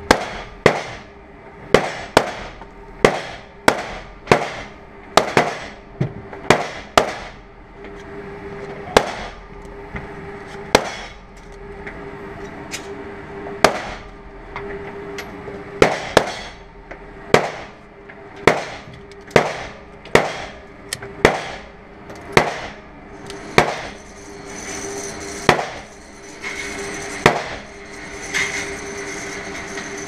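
Gunshots echoing in an indoor shooting range, a long irregular string of sharp cracks roughly one every half second to a second, over a steady hum.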